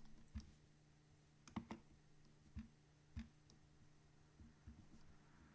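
Faint, irregular clicks from a computer keyboard, a handful of separate taps, over a low steady electrical hum.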